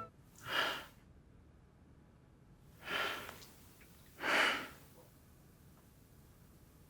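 A man's breathing: three separate heavy breaths or sighs, the last one the loudest.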